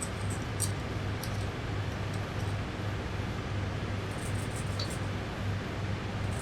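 Steady low electrical hum that throbs about twice a second, with a few faint ticks and light rustling of handling.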